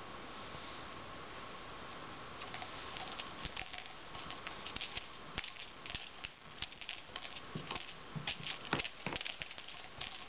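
Toy mouse with a rattle inside, shaken and batted about: quick, irregular rattling and clicking that starts about two seconds in and keeps going.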